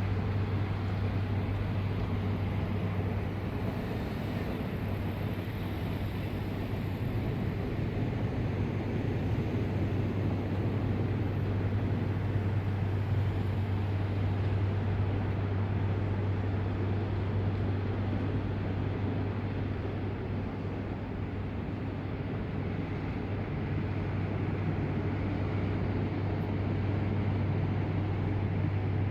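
Shinkansen train running at a station platform: a steady low rumble with a constant hum, and a high hiss that fades about halfway.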